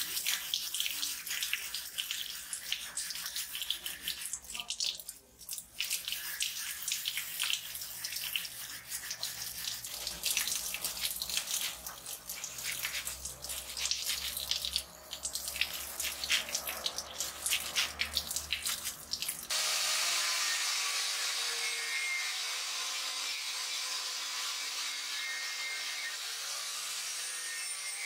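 A hand wire brush scrubbing rust off an antique ice axe's steel head: a fast, uneven run of scratching strokes. About 19 seconds in it gives way abruptly to the steady running of an angle grinder with a wire cup brush.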